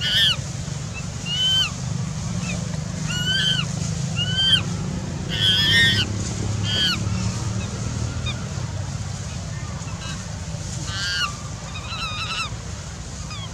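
An animal's short, high, arched calls, about ten of them at irregular intervals and most between about 5 and 6 seconds in, over a steady low hum.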